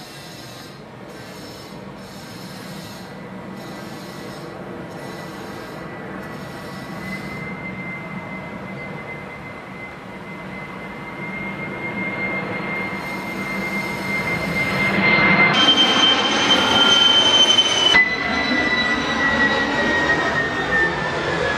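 Boeing 747 freighter's four jet engines on final approach: a high whine over a rumble, growing louder as the jet passes low overhead, the whine sliding down in pitch near the end as it moves away.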